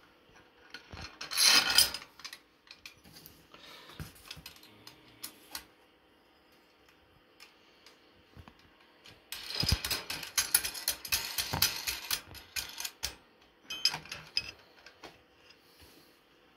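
Metal antenna mast-clamp pieces and bolts clicking and clattering as they are handled and fitted together by hand. There is a short loud clatter near the start and a long run of quick clicks and scrapes in the second half.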